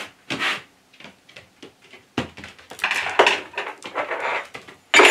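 A wad of tissue being worked around inside the bore of a Record Power DML305 lathe tailstock to clear out dust and muck. There is a short scuff near the start, then from about two seconds in a run of irregular rubbing strokes with small knocks of metal parts being handled.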